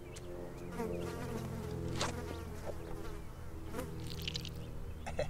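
A steady low buzzing drone, with a few light ticks and rustles over it.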